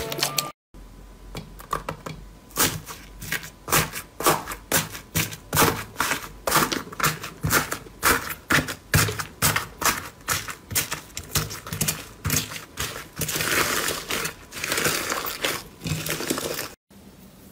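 Pink fluffy slime studded with foam beads being pressed and kneaded by hand, giving sharp crackling pops two or three a second that thicken into a denser steady crackle near the end. A moment of music is heard at the very start.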